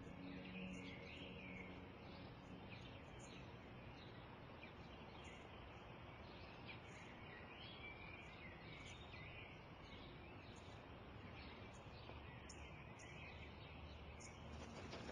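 Faint outdoor ambience: small birds chirping on and off over a steady low background noise.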